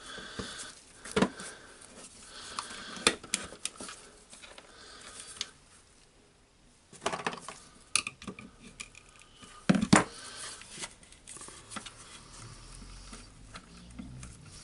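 Clicks, knocks and clatter of plastic and metal parts as a cordless angle grinder's motor housing is handled and worked apart to free the armature. Sharp knocks stand out about a second, three seconds and ten seconds in, with a short quiet gap around six seconds.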